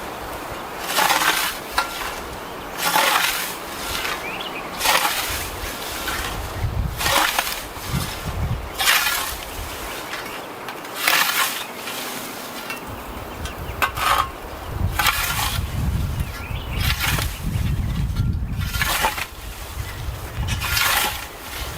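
A Marugg scythe blade swishing through tall grass and weeds in repeated strokes, one short hissing swish roughly every two seconds. A low rumble runs underneath at times.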